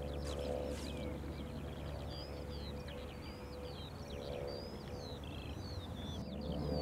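Birds singing continuously, a rapid stream of high chirps and warbles, over a low steady drone.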